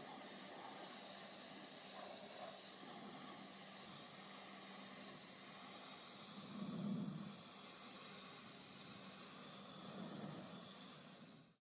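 Electric pressure washer spraying: a steady jet hiss with a low, even hum under it. It swells slightly about seven seconds in and cuts off shortly before the end.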